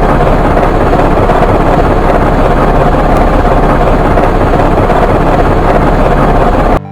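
Heavy construction machine engine running steadily and loudly, a dense rumbling clatter that cuts off suddenly near the end.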